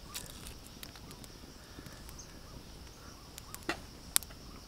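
Quiet outdoor ambience with a faint steady high hiss, then a few light clicks near the end, the sharpest and loudest about four seconds in as a metal pan is handled.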